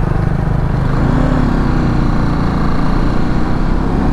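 Motorcycle engine running steadily at riding speed, with wind rush on the microphone. About a second in, a steadier tone rises slightly over the engine.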